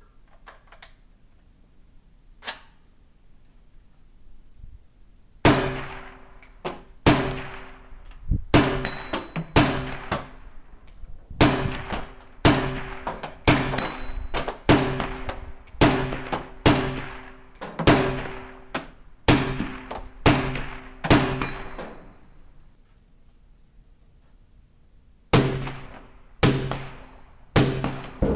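Steel shooting target ringing as it is hit over and over, about one hit a second, each hit a sharp clang that rings out and fades. A few faint hits come first, and there is a short pause a few seconds before the end.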